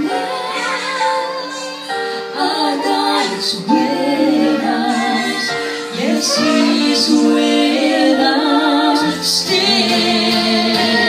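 Slow song: a woman singing with vibrato over sustained accompaniment. The accompaniment changes and fills out about nine seconds in.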